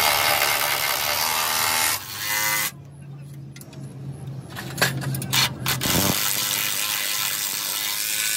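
A power tool running in two loud stretches of hissing noise, about two seconds at the start and again from about six seconds in. Between them is a quieter steady hum with a few clicks.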